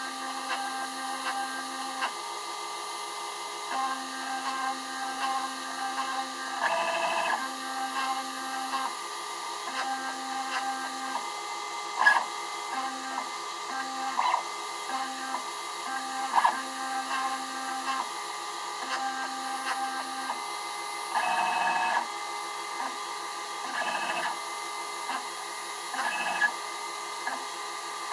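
Stepper motors of a mini CNC laser cutter whining through short moves as the head traces small stencil openings. Each move holds a steady tone for a second or two between brief pauses, with a few louder, rougher stretches scattered through.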